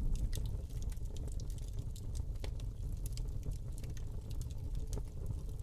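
Sound-effect tail of an animated logo intro: a low rumble with scattered, irregular crackles. It fades over the first second, then holds steady.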